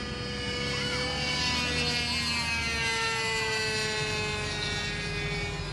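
Engine of a World Models P-51 Mustang 40-size radio-control model plane, droning steadily as it flies overhead, its pitch falling slowly through the pass.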